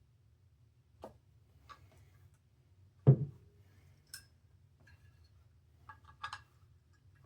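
Scattered clicks and taps of hands working stiff parts out of a Pyrotronics Pyr-A-Larm HAC-120 alarm horn's housing, with one loud knock about three seconds in and a quick run of clicks near the end.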